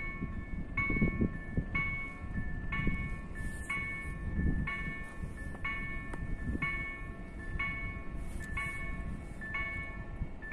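Level-crossing warning bells ringing steadily while the crossing signals warn of an approaching train: two bells of slightly different pitch strike in turn, about three dings every two seconds, over a steady low noise.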